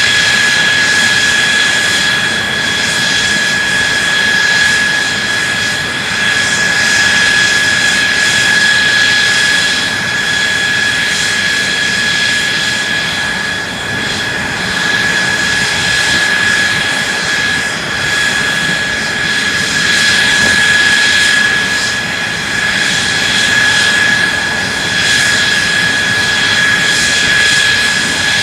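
F-2 fighter's F110 afterburning turbofan engine running steadily on a ground run, a loud, even jet roar with a constant high-pitched whine.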